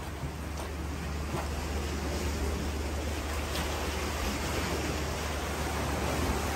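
Steady rushing roar of sea surf washing against a rocky shore, growing slowly a little louder.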